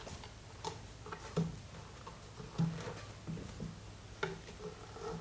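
Scattered light clicks and taps of hand tools and metal parts, one every half second to a second, while a scooter wheel assembly is being worked loose.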